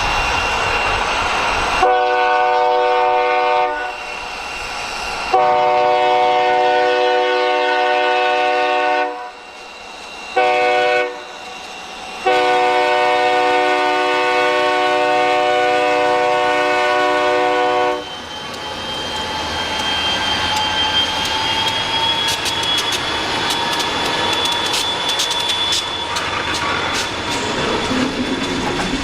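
EMD SD40 diesel locomotive's air horn sounding the grade-crossing signal: long, long, short, long. The freight train then rolls past, its wheels clicking over the rail joints, with a thin faint squeal rising above the rumble.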